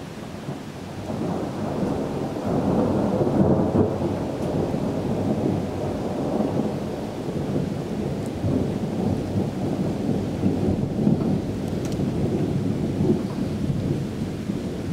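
A long roll of thunder rumbling, swelling about two seconds in and rising and falling after that, with rain falling during a thunderstorm.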